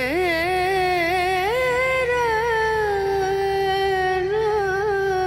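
Background music: a single voice singing one long, ornamented phrase with a wavering pitch, settling into a held note for the last couple of seconds, over a steady low hum.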